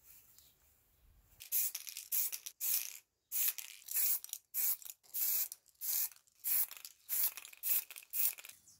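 Aerosol spray paint can spraying in a dozen or so short hissing bursts with brief pauses between them, starting about a second and a half in.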